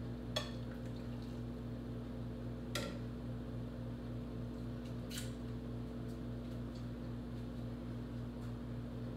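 Three sharp clinks of utensils against dishes, a few seconds apart, the first two loudest, over a steady low hum.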